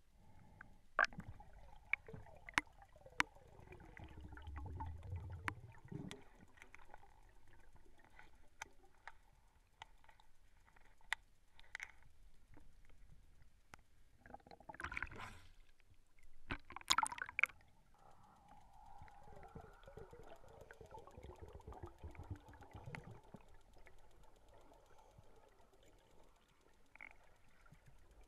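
Muffled underwater sound around a scuba diver, heard through the camera's housing: scattered sharp clicks and knocks, and two low bubbling rumbles. About halfway through come two short hissing bursts, roughly two seconds apart.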